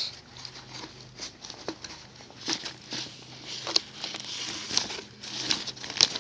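Close handling noise from a cardboard pack of artillery firework shells: irregular rustling and scraping with scattered sharp taps and clicks as it is turned over and opened.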